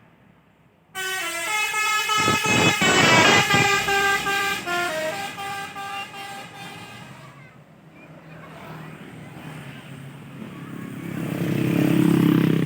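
Tour bus 'telolet basuri' multi-tone horn playing a short tune: several horn notes step up and down, starting about a second in and lasting about six seconds. After the tune, a low vehicle engine noise swells to a peak near the end.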